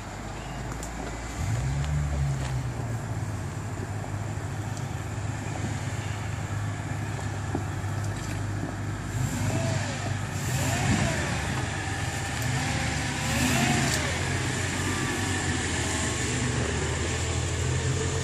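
Engine of a lifted Jeep Grand Cherokee running under load as it crawls through deep mud ruts. It revs up about a second and a half in and holds a steady pull, then passes close by near the end.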